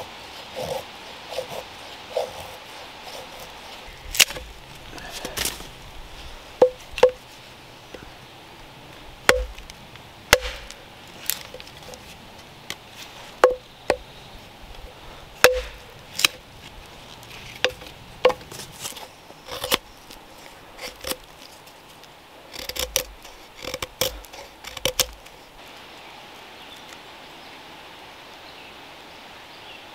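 Hatchet chopping and splitting kindling on a log: a series of sharp, irregular wooden knocks, roughly one a second, that stop a few seconds before the end.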